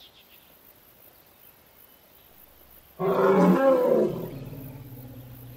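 African elephant giving one loud, harsh roar about three seconds in, after faint background; it dies away into a low, drawn-out tone.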